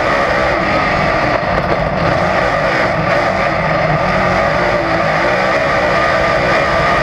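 Dirt-track race car's engine running loud and steady at racing speed, heard from inside the car's cockpit.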